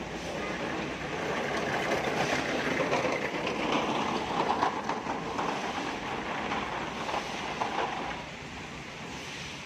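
Heavy rain hissing on paving, with a hand trolley loaded with stacked crates rattling and clattering over brick pavers as it is pushed close past. The clatter swells to its loudest about four to five seconds in, then fades away.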